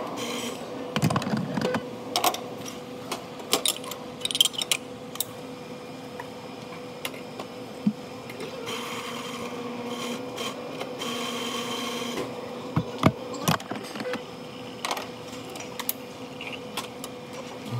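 Work sounds at a café espresso machine: a steady hum under scattered clinks and knocks of cups and utensils, with a few seconds of louder hissing machine noise about halfway through.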